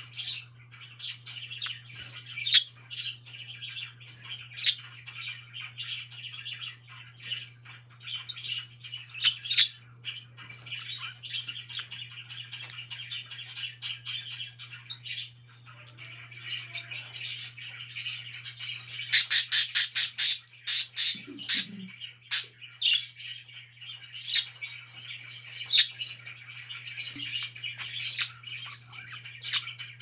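Pet budgerigars chattering and warbling continuously, with sharp chirps throughout and a run of rapid, loud chirps about twenty seconds in. A faint steady low hum sits underneath.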